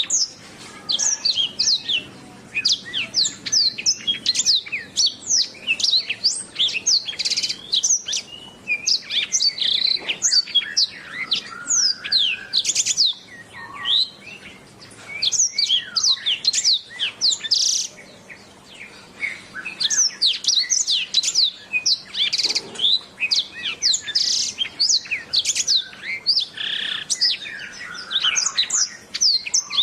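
Domestic canary singing a continuous, rapid warbling song of quick high sweeping chirps and trills, with only short breaks.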